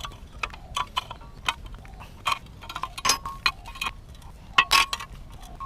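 Irregular metallic clicks and ticks, some with a short ring, from a C-clamp bushing press being turned with a long wrench handle as it squeezes a new rubber bushing into a car's suspension control arm.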